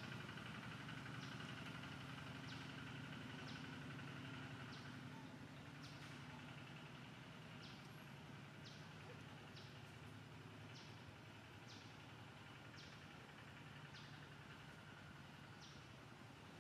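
Faint outdoor ambience: a bird giving a short high chirp about once a second, over a steady low hum.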